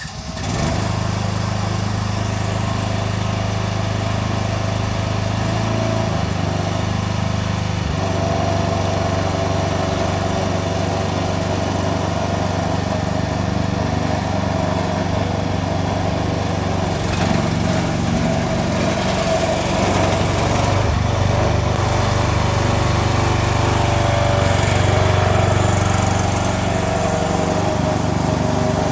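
Small engine of a MIVA Model 15 mini excavator catching right at the start and then running steadily, a little louder and more uneven in the second half.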